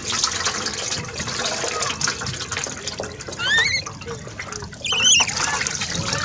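Water poured from a plastic dipper splashes over a baby monkey into a metal basin. Twice, about three and a half and five seconds in, the baby monkey gives a short, high-pitched, wavering squeal.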